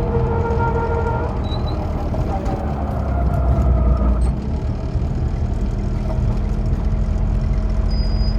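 Low, pulsing metallic rumble (the 'gogogo' noise) from a car's right front wheel end (hub and brake) at low speed, with a squeal tone that stops about a second in and a falling tone around two to four seconds. A steady hum carries on after about four seconds. The owner suspects something has come loose or is starting to fail after a light contact on the right front, even though the hub and brakes were overhauled and the rotor and pads replaced.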